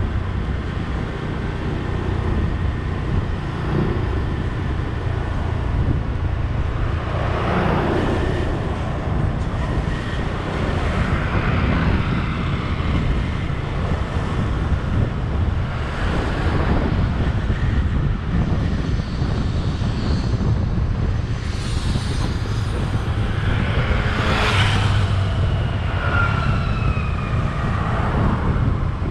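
Steady low road and wind rumble from a vehicle driving along a street, with a few other vehicles swelling past close by, loudest about eight seconds in, midway, and near the end.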